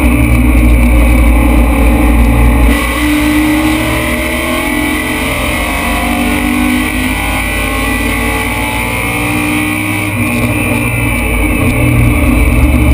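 BMW M3 race car's engine heard from inside the cabin under hard throttle. It eases off about three seconds in and runs quieter until about ten seconds in, then comes back up loud.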